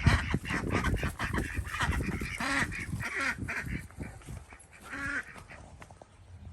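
Domestic ducks quacking loudly in a rapid, irregular run of calls that thins out after about three seconds, with one more quack about five seconds in.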